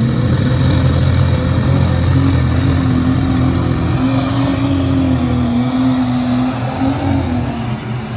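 A super stock pulling tractor's diesel engine running flat out under heavy load as it drags the weight-transfer sled down the track. The engine note holds high and steady, wavering slightly in the middle of the pass.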